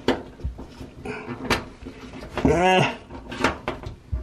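Hand-handling noise behind a front-loading washer: scattered light knocks and scrapes against its sheet-metal back panel and hoses as a plastic hole cap is pressed into a shipping-bolt hole. A little past the middle comes a brief vocal sound, the loudest thing heard.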